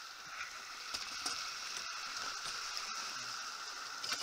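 Steady hiss of wind and water rushing past a Farrier F-31 trimaran under sail.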